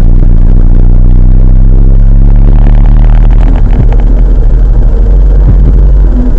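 Vehicle engine drone heard from inside the moving vehicle: a steady low hum with road noise, recorded so loud that it is distorted.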